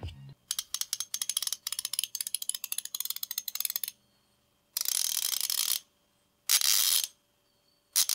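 Half-inch-drive 90-tooth Kobalt ratchet being worked: a run of rapid, fine pawl clicks lasting about three seconds, then three short bursts of faster ratcheting.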